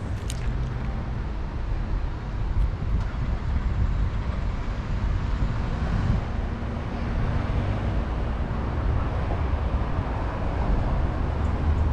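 Steady, fairly loud low rumble of outdoor background noise with no distinct events.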